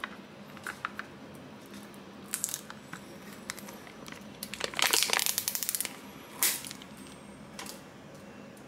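Thin clear plastic film lid being peeled off a plastic pudding cup. A few light crinkles come first, then a run of crackling about halfway through as the seal pulls away, followed by one more crinkle.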